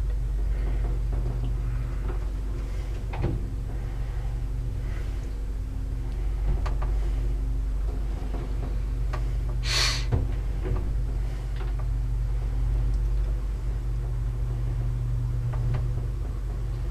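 Lift in motion: a steady low hum from the car and its drive, with scattered clicks and a short hiss about ten seconds in.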